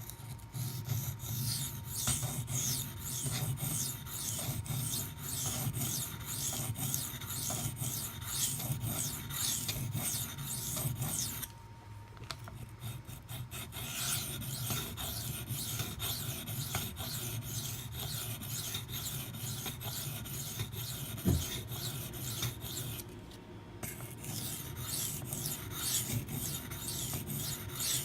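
Maxamet steel knife blade being stroked back and forth on a 400-grit CBN waterstone, a steady run of rasping strokes. The strokes break off twice briefly, about halfway through and again near the end.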